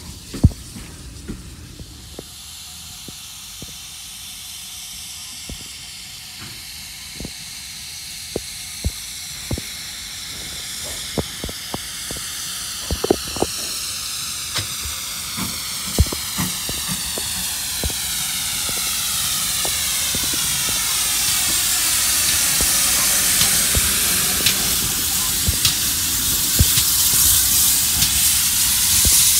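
Steam locomotive No. 7812, a GWR Manor-class 4-6-0, hissing steam as it draws in along the platform. The hiss grows steadily louder and sweeps in tone as the engine nears, with scattered sharp clicks.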